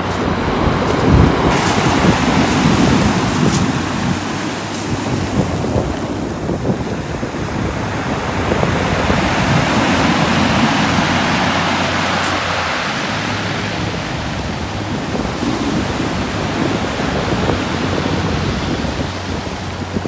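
Surf washing up and running back over a pebble beach, building to its loudest about halfway through, with wind buffeting the microphone.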